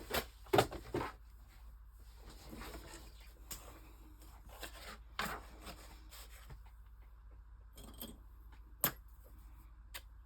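Paper being cut with an X-Acto craft knife on a tabletop: a few sharp knocks in the first second as the tools are handled, then soft paper rustles and scattered light taps and scrapes as the blade works along the page.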